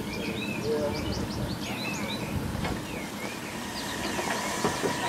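Songbirds chirping repeatedly over a steady low rumble. About four seconds in, a steady high tone begins.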